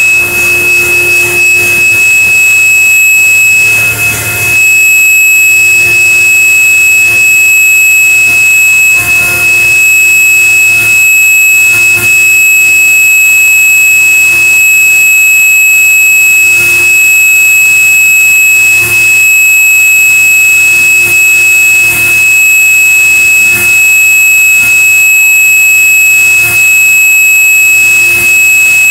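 A pipeline X-ray crawler's electronic buzzer sounds one loud, steady, high-pitched tone without a break. Short clicks come every second or two.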